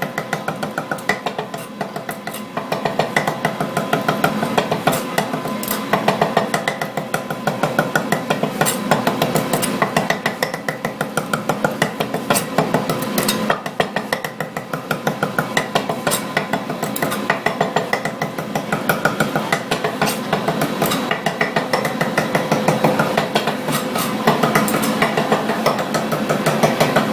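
Kitchen knife chopping rapidly on a cutting board: a long run of quick, regular strokes, several a second, over a steady background hum.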